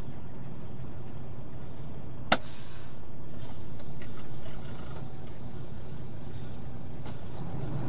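Truck engine idling steadily, heard from inside the cab, with one sharp click about two seconds in.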